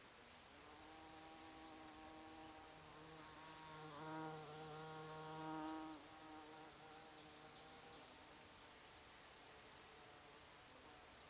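A bumblebee buzzing as it flies among Solomon's seal blossoms, faint at first, swelling to its loudest for a couple of seconds around the middle as it comes close, then fading as it moves off.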